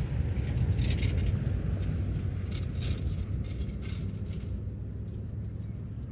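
Steady low road rumble of a moving car, heard from inside the cabin, with a few brief rattles in the first half that die away.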